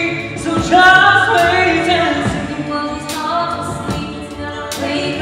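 Stage musical number: a voice singing drawn-out notes over backing music.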